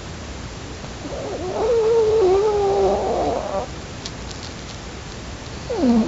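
Sleeping dog snoring: one long pitched, wavering snore lasting about two seconds, starting about a second in, and the start of another near the end that opens with a falling note.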